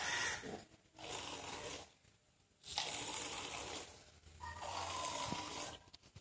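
Goat being hand-milked into a small steel pot: milk squirting into the pot in spurts about a second long, with short gaps between them.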